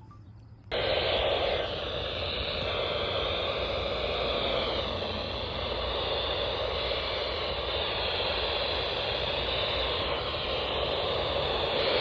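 Radio static: a steady hiss that switches on suddenly about a second in, with faint wavering tones under it.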